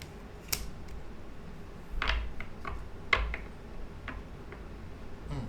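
Tarot cards being handled and laid down on a table: a few short sharp taps and flicks with soft thuds, the loudest about three seconds in.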